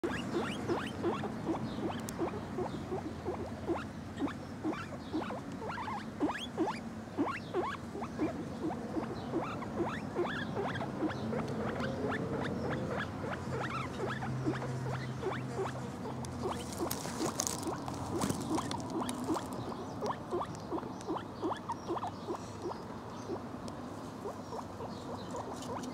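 Guinea pig making a steady run of short, soft calls, about three a second.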